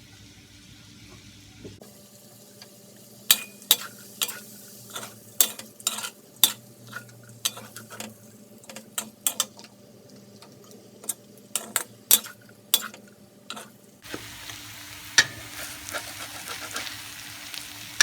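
Metal cooking utensils clinking and scraping against a pot or pan in many sharp separate clicks, over food frying in a pan. The sizzle grows louder near the end.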